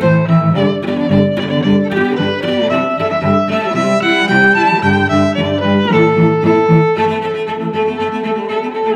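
Background music played on bowed strings, with held notes changing every second or so.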